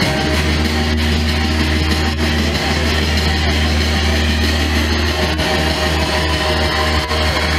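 Dance music played loud over PA speakers, with a heavy, sustained deep bass note underneath.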